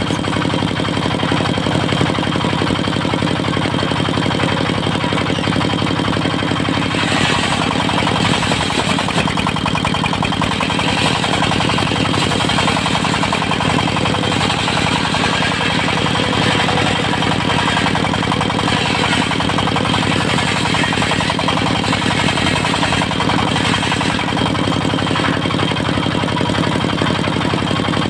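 Diesel engine running steadily at a constant speed, the engine that drives a portable circular-saw sawmill.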